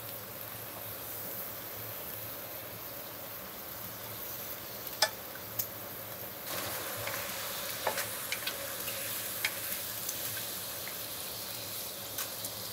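Shrimp sizzling steadily in a hot skillet as they are stir-fried with a wooden spatula, with a few sharp clicks spread through.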